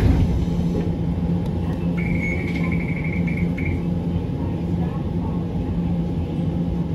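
Steady low rumble and hum of a Hiroshima Electric Railway 1900-series tram (ex-Kyoto City tram) heard from on board. About two seconds in, a high-pitched tone sounds for about a second and a half.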